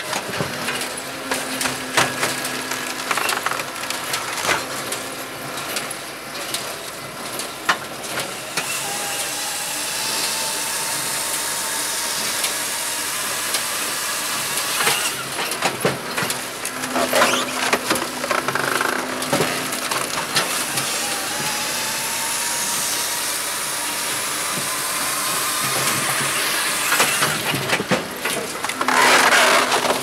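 Firewood processor at work: its machinery running steadily with knocks and clicks while a log is cut by the circular saw and pushed through the splitting wedge. Wood cracks and splinters as it splits, loudest in bursts a little past the middle and just before the end.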